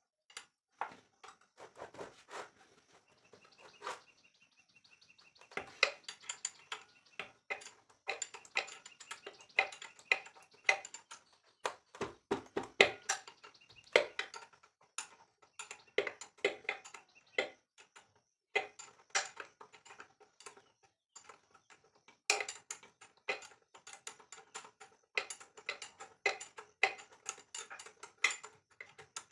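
Irregular metallic clinks, taps and knocks of hand tools and small engine parts being handled during repair of a mini tiller's diesel engine.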